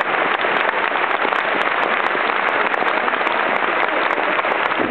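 Large football-stadium crowd applauding, a dense, steady wash of clapping.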